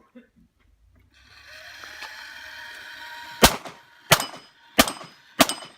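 A moving steel target runs along its track with a steady whirring from about a second in, then a pistol fires four shots about two-thirds of a second apart at the moving steel plate, with a faint ring of steel after some of the hits.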